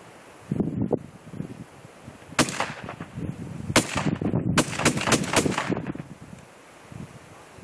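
Several shotgun shots, one about two seconds in, another a little later, then a quick cluster of shots close together. Wind noise buffets the microphone.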